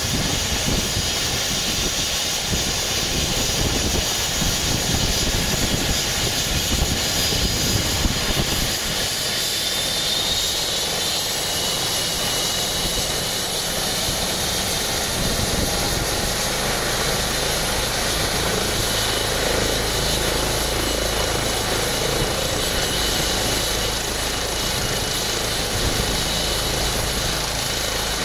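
Twin-turbine rescue helicopter starting up for an emergency launch: a steady high turbine whine, with a rising whine about ten seconds in as an engine spools up. A low rumble from the turning rotor builds in the second half.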